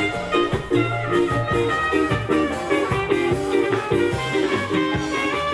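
A live band playing upbeat music with a quick, steady beat.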